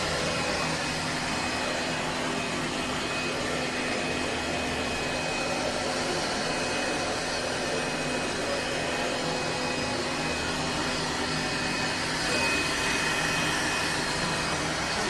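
ILIFE A12 Pro robot vacuum running: a steady whirring hum with a thin high whine in it, getting slightly louder near the end.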